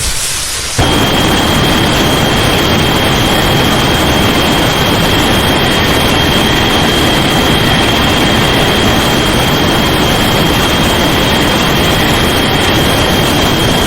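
Loud, steady rushing noise like static, with a thin high whine held on top. It starts abruptly about a second in, as a fading ringing tone ends.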